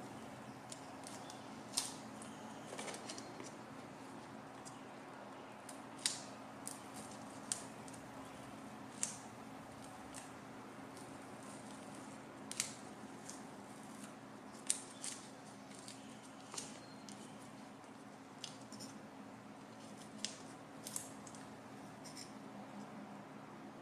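Hobby-knife blade scraping and picking paint out of the anvil-mount hole of a freshly painted metal stand base: scattered short sharp scratches and clicks, about one every second or two, over a faint steady low hum.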